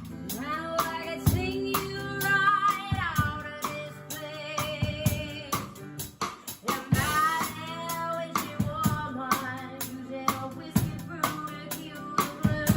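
A woman singing a singer-songwriter song over instrumental backing with drum hits.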